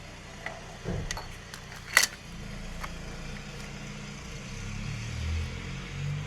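Metal tool clicks and clinks on the flywheel bolts, with one sharp, loud click about two seconds in, over a low steady hum.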